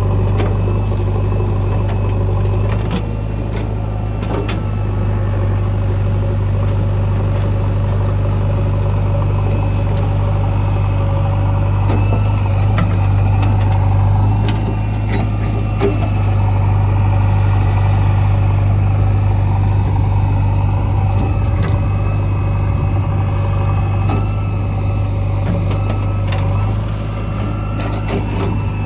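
Heavy diesel engine running steadily with a deep, even hum. The level dips slightly a few times.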